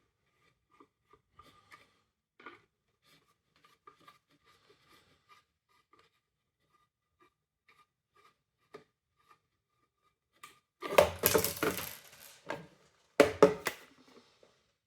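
Faint small clicks and handling noises from the plastic parts of a window vacuum cleaner being worked apart. Near the end come two loud, rough bursts of scraping and clattering, each about a second long.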